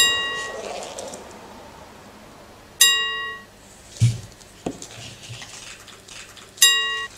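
Bright bell-like ding sound effect, once at the start and again about three seconds in, then a quick run of dings near the end. A couple of soft low thumps come in the middle.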